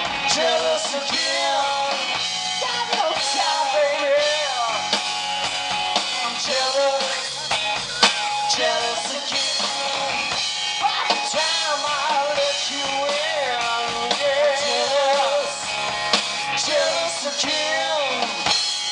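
Live rock band playing loudly: a drum kit with cymbals, electric guitar and bass guitar, with pitched lines that bend and waver above the beat.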